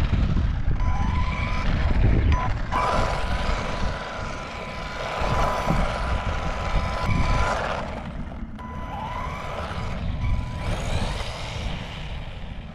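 ARRMA Typhon Grom 1/18th-scale RC buggy driving, its brushed 380 electric motor whining with a pitch that rises and falls as the throttle changes, over tyre noise on loose chip-seal and a heavy low rumble.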